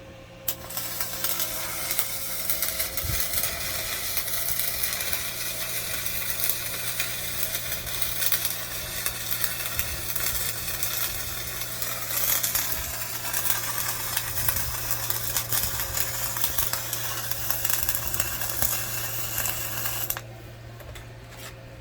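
Gasless flux-core MIG welding with a Hyundai HG200 welder on 1.0 mm wire: a continuous crackling, sizzling arc. It strikes up abruptly about half a second in and cuts off abruptly about twenty seconds in.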